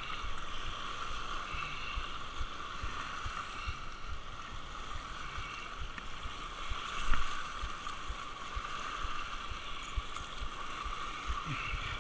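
Small waves lapping and washing over a rocky lake shoreline, with wind buffeting the microphone in low thumps and one louder thump about seven seconds in.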